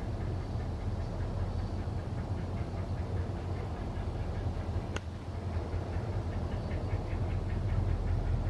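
Two Canadian Pacific diesel-electric locomotives working hard at low speed, a steady deep engine rumble with rhythmic chugging on top. A single sharp click comes about halfway through.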